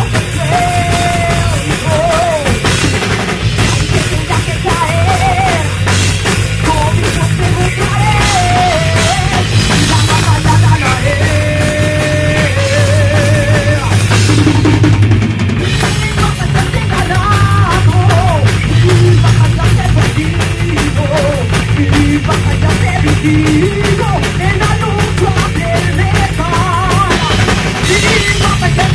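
Loud rock music with a busy drum kit and a steady bass line under a wavering melody line.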